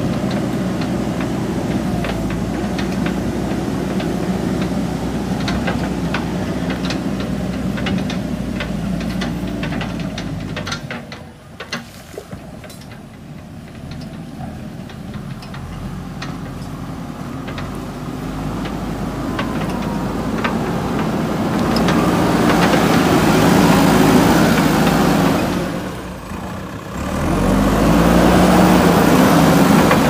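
JCB backhoe loader's diesel engine running steadily, with scattered sharp clicks in the first third. It fades for a few seconds around the middle and comes back louder near the end.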